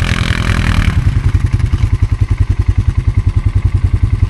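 ATV engine running: busier and louder for about the first second, then settling to a low, steady idle with an even pulsing beat.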